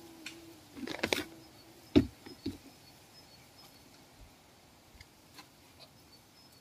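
A bumblebee buzzing with a steady hum for about a second, followed by rustling in dry leaf litter and two sharp knocks about two seconds in, the first the loudest sound; after that only faint scattered ticks.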